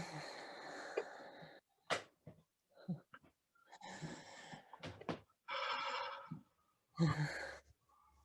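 A person stirring and breathing in a small quiet room: several short noisy bursts, the first the longest, with a few sharp clicks in between.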